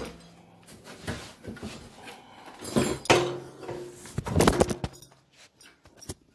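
Irregular handling noise: knocks, bumps and rustling as an electric utility heater is set down and its cord plugged in, with the phone jostled close by. The loudest knocks come about three and four and a half seconds in.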